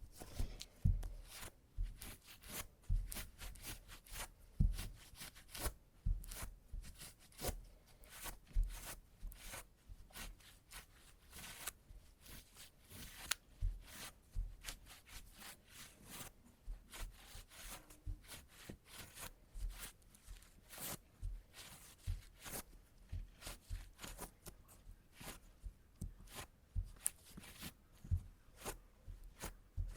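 Sticky tape pressed onto fabric trousers and peeled off again and again to pull out embedded clipped cat hair: a quick, uneven series of short peels throughout.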